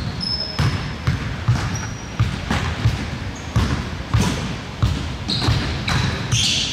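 Basketball bouncing on a gym floor, a sharp thump about every half second to second, as in dribbling, with short high sneaker squeaks in between.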